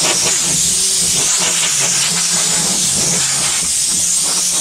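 Compressed air hissing steadily from a hose-fed tyre-inflator gun with a pressure gauge, blown into a tractor cab's roof lining, with a steady low hum underneath.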